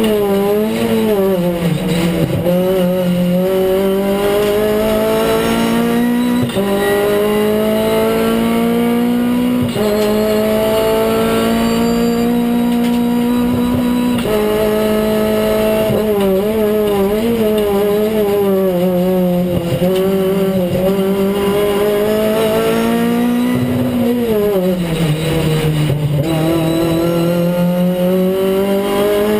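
Renault Clio Cup race car's four-cylinder engine heard from inside the cockpit, pulling hard with the pitch climbing and then dropping sharply at each of several upshifts. About three-quarters of the way through the pitch falls away as the car brakes and shifts down, then it climbs again under acceleration.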